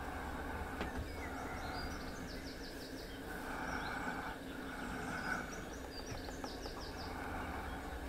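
Small songbirds singing in the background, two short trilled phrases, over a steady low rumble.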